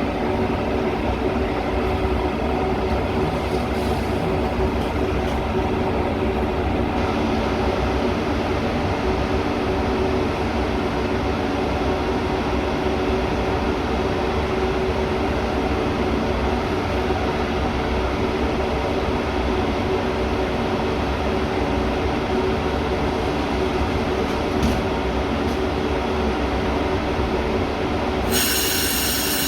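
Metra commuter train running steadily, a continuous rumble with a steady hum. About 28 seconds in, a high-pitched multi-tone wheel squeal suddenly starts.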